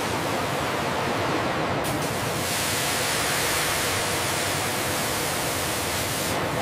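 Steady factory machinery noise, changing about two seconds in to a brighter, steady hiss of water jets spraying machined metal parts in an industrial parts washer.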